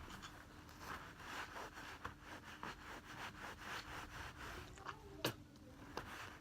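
Soft, repeated rubbing and scraping of hands handling things, with one sharp click a little after five seconds in.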